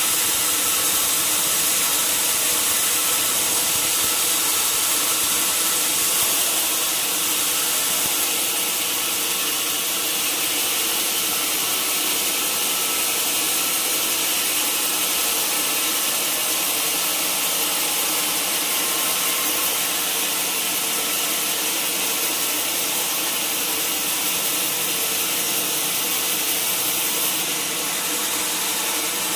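Sawmill saw running steadily, cutting through a mahogany log with a continuous hissing machine noise.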